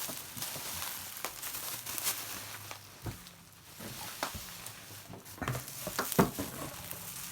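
Packing material crinkling and rustling as it is handled and unwrapped by hand, with irregular sharp crackles; the loudest snap comes about six seconds in.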